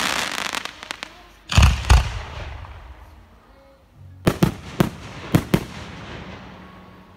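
Aerial firework shells bursting overhead. A crackling hiss fades at the start, two heavy booms come about a second and a half in, and a quick string of about six sharp bangs follows between four and five and a half seconds in, each trailing off.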